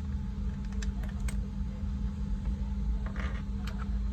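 Mechanical keyboard switch in a hot-swap keyboard being pressed to test whether it registers: a few sharp separate clicks, with a short cluster about three seconds in, over a steady low hum.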